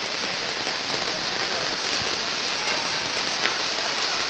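Heavy rain falling steadily, a dense even hiss with a few single drop ticks.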